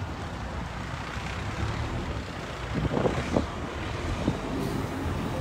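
Heavy fire-rescue truck's diesel engine running as it drives slowly past, with a couple of brief knocks about three seconds in.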